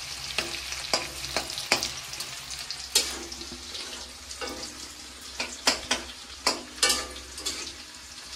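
Sliced onions sizzling as they fry in oil in a metal kadai, browning, while a spatula stirs them with frequent irregular scrapes and clinks against the pan.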